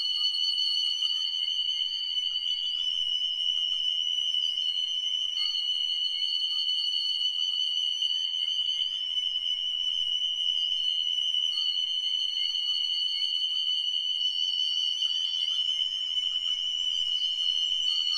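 Electronic music from live electronics: a single high tone held steady throughout, with thinner, higher tones above it that step and slide in pitch in a pattern returning every six seconds or so.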